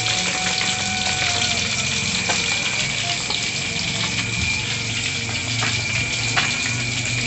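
Whole catfish deep-frying in hot oil in a large aluminium wok: a steady, dense sizzle with a few sharp pops, over a steady low hum.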